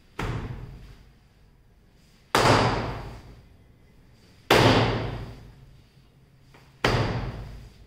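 A homemade rubber throwing strap, cut from tyre rubber, whipped forward and slapped hard against a wall in a javelin arm drill. There is one lighter hit at the start, then three loud whacks about two seconds apart, each echoing off the hard walls.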